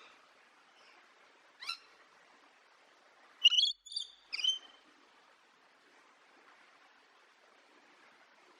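Parrot calling: one short call, then three louder, sharp chirping calls in quick succession about halfway through, over a faint steady hiss.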